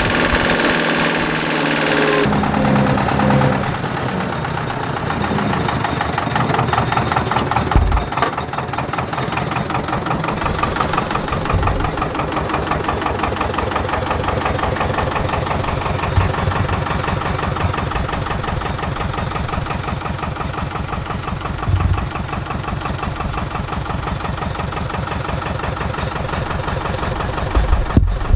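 An engine running steadily at low revs with an even, knocking pulse, and a few low thuds here and there. For about the first two seconds a harsher, hissier engine sound plays, and it cuts off abruptly.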